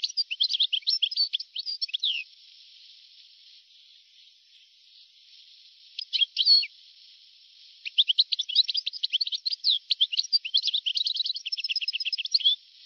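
European goldfinch singing in bursts of rapid twittering notes: a run of about two seconds at the start, a short burst about six seconds in, and a longer run from about eight seconds until just before the end, over a steady hiss.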